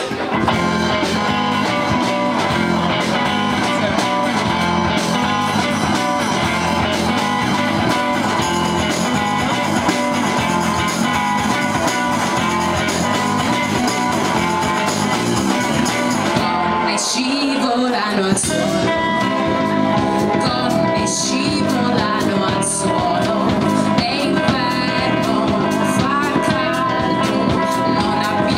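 Live rock band playing: electric guitar, bass guitar and drums, with a woman singing. The band comes in all at once at the start, and the sound thins briefly with a falling slide a little past halfway before the full band carries on.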